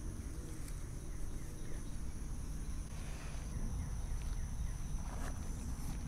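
Outdoor field ambience: a steady high insect trilling, with a low rumble underneath.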